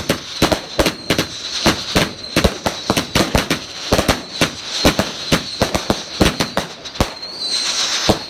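Aerial fireworks going off in rapid succession: a dense string of sharp bangs and crackles, several a second, with a stretch of hiss near the end.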